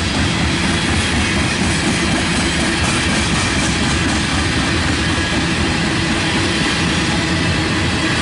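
Railroad tank cars of a freight train rolling past: steel wheels on the rails make a steady, loud rumble and rattle with no pauses.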